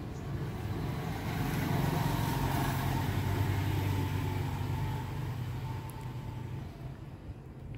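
A motor vehicle going past: a low engine hum and road noise that swell from about a second in, hold for a few seconds, then fade away.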